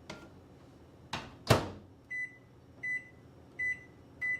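Microwave oven door shut with a sharp clack, then four short keypad beeps about three-quarters of a second apart as the oven is set to melt chocolate.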